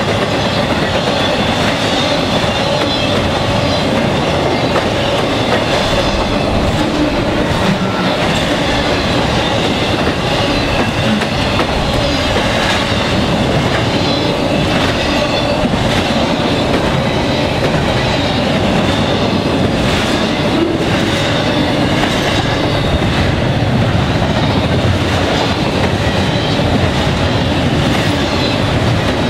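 Norfolk Southern double-stack intermodal freight train's well cars rolling past at speed: a steady loud rumble of steel wheels on rail with clicks at the rail joints, and a thin, steady, high squeal above it.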